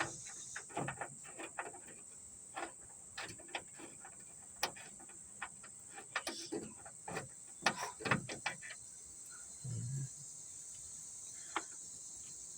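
Irregular clicks and small metal knocks of a socket ratchet and hand tools working the trunk latch bolts, over a steady high chirring of crickets.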